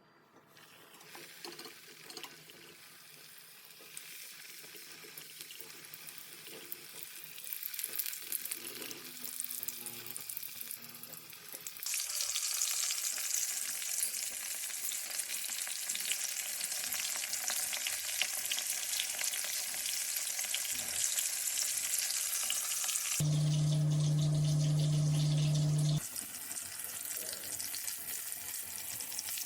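Tiger prawns frying in hot oil, a steady sizzling hiss that builds and jumps much louder about twelve seconds in. Near the end a loud steady low hum cuts in for about three seconds, then the sizzle returns.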